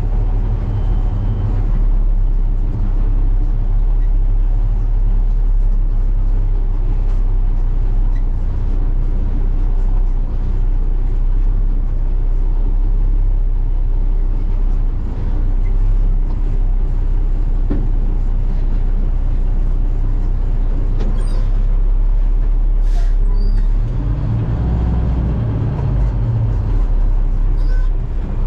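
Truck engine running at road speed, heard from inside the cab, a steady low drone with road noise. Near the end the engine note changes and swells for a few seconds before settling back.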